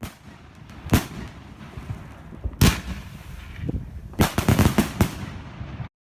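Fireworks going off: a sharp bang about a second in, a louder bang near the middle, then a quick run of cracks, over a steady rumbling hiss that cuts off suddenly near the end.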